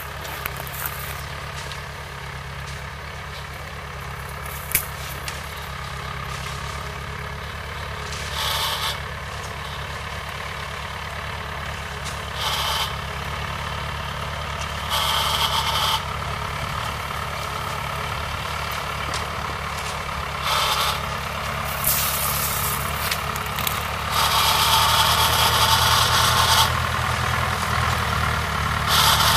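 Small farm tractor's engine running steadily under load as it pulls a cultivator through the soil between cane rows, growing louder as it comes closer. Several short bursts of hiss rise over the engine, the longest near the end.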